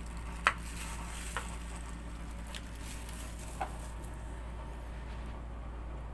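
A few light clinks of a metal spoon against a ceramic plate. The loudest comes about half a second in and a smaller ringing one follows a few seconds later, over a steady low hum.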